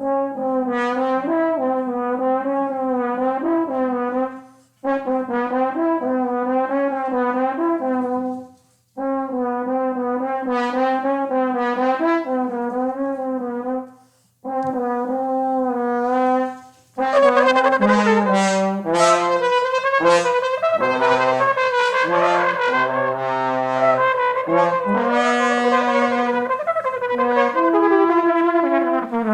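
Improvised trumpet and trombone duet: long held notes with a wobbling, wavering pitch in phrases of a few seconds separated by short breaks, then from about halfway through the two instruments play together, with lower notes moving underneath.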